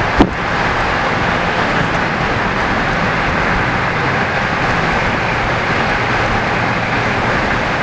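Steady rolling rumble of a passing train, with one sharp knock just after the start.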